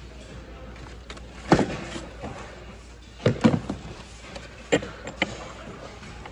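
Objects being moved about by hand in a plastic tote, knocking against each other and the tote's sides: a few sharp knocks and clatters, the loudest about a second and a half in, a quick pair just after three seconds and two more near five seconds.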